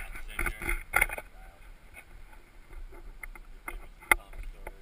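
Low wind rumble on the microphone with scattered clicks and knocks of gear being handled, busiest in the first second, and one sharp knock about four seconds in.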